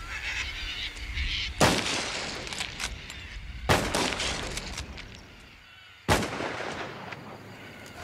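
Three rifle shots about two seconds apart, each a sharp crack with a short echoing tail. Cockatoos screech in the background before the first shot.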